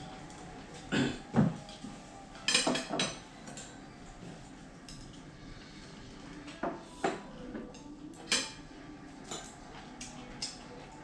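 Tableware clinking and knocking during a meal: chopsticks tapping ceramic bowls and plates. The short, sharp clinks come irregularly, a few at a time, the loudest cluster in the first three seconds.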